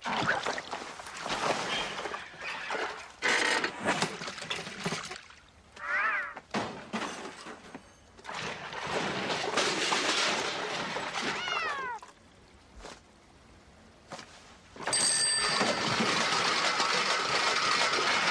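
Cartoon soundtrack sound effects without dialogue: a string of short noisy hits and rustles, a brief pitched cry that rises and falls about six seconds in, a falling pitched glide near twelve seconds, and a steady noisy stretch starting about fifteen seconds in.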